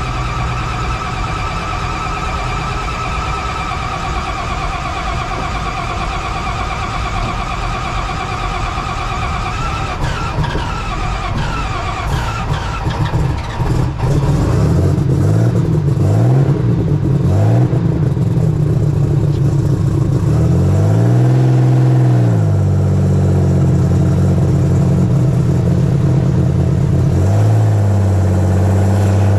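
Superstock pulling tractor's multi-turbo diesel engine heard from the driver's seat, running steadily with a high whine at first, then from about halfway louder and deeper, blipped up and down three times and given one longer rev before holding a steady higher note.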